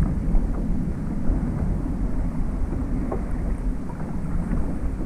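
Wind buffeting the microphone in a steady low rumble, with small waves lapping against a plastic kayak hull in scattered faint splashes and ticks.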